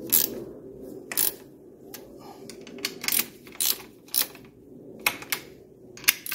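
Hand ratchet wrench clicking in short strokes as mounting bolts are run down in an engine bay, about a dozen sharp clicks at uneven spacing.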